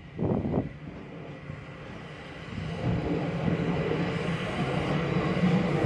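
SR U class 2-6-0 steam locomotive moving off slowly: two short exhaust chuffs just after the start, then a steady hiss of steam from its open cylinder drain cocks that grows louder about three seconds in.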